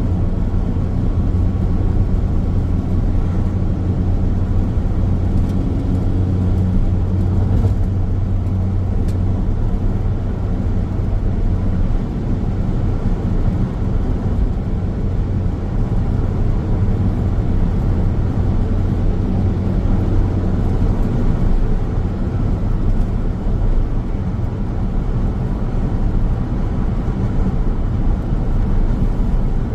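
Car driving at steady speed on a highway: a constant low road and tyre rumble with a steady engine drone underneath.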